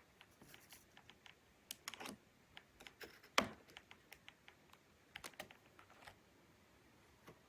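Laptop keyboard keys clicking under irregular presses: a few dozen light clicks, with one louder click about three and a half seconds in.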